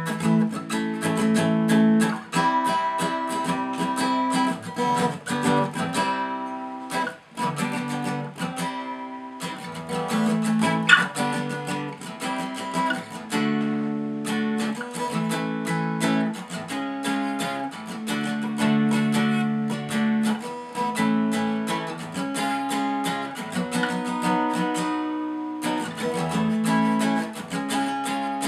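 Acoustic guitar music: chords strummed in a steady rhythm, with a brief break about seven seconds in.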